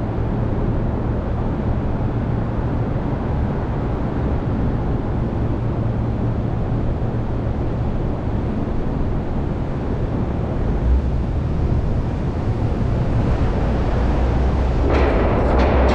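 Car's engine idling with a steady low hum while stopped, then pulling away. The low rumble grows about eleven seconds in, and a louder rushing noise joins near the end as the car gets moving.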